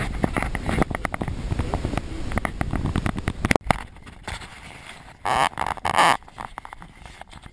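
Wind buffeting the camera microphone, with a rapid run of clicks and knocks. After a sudden drop in level come two short, rough scraping bursts as a tool works broken ice in a hole cut through a frozen lake.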